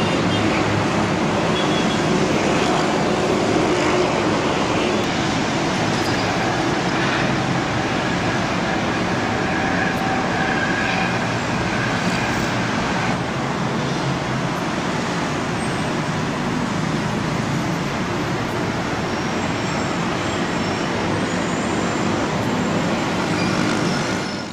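Steady roar of aircraft engines and airport ground noise. About halfway through it changes to the engines of a twin-turboprop airliner taxiing, with a faint high whine near the end, then cuts off.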